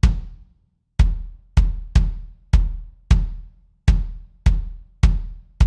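Kick drum hits from a soloed, live-recorded kick track with an Addictive Trigger replacement kick sample layered on it, about ten hits at an uneven drum-pattern spacing of half a second to a second apart. Each has a sharp attack and a deep low boom that dies away in about half a second.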